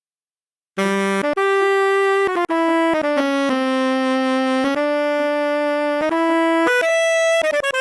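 Sampled brass instrument from an SF2 soundfont playing a single-line melody of separate sustained notes, with a quick run of short notes near the end. It comes in after nearly a second of silence.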